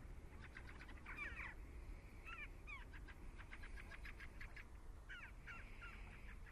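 Fieldfares calling: bursts of short, harsh chattering notes, some in quick runs, mixed with a few falling squeaky notes, over a low, steady background rumble.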